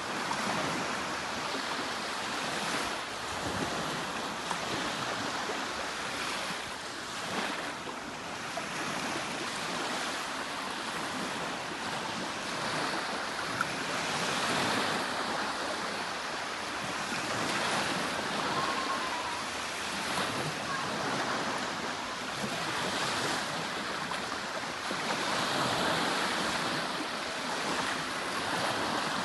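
Steady rushing white noise, spread evenly from low to high, swelling and easing slowly over several seconds at a time.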